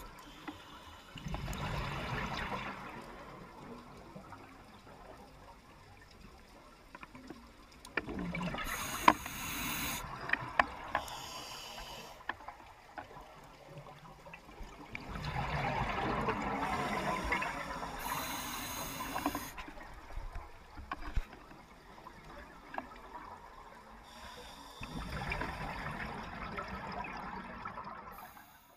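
Scuba diver breathing through a regulator, picked up underwater: swells of bubbling and hiss come about every six to eight seconds, with crackles in them and quieter stretches between. The sound cuts off near the end.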